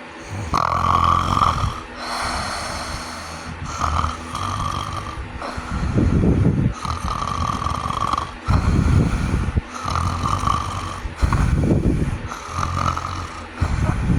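A sleeping person snoring, with a rough rasping snore on each breath in and out, about one breath cycle every three seconds. This is snoring that the uploader puts down to sleep apnea.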